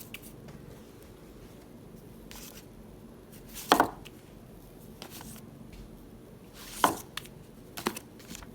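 Potato chips crunching: a few sharp, crisp crunches spaced a few seconds apart, the loudest about four seconds in, over quiet room tone.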